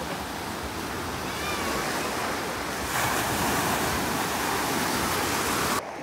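Ocean surf breaking on the shore: a steady rush of waves that swells about halfway through and cuts off suddenly near the end.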